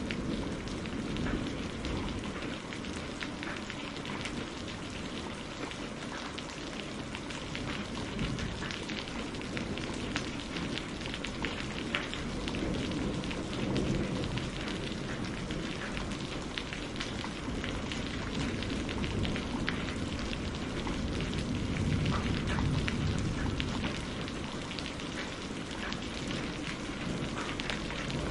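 Steady rain pattering on a greenhouse roof, with many separate drop ticks, over a low rumble of distant thunder that swells a few times.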